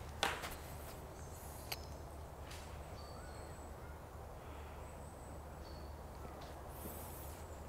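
Quiet outdoor ambience with a few faint, short bird calls. A short, sharp thump or scuff comes just after the start, and a small click follows about a second and a half later.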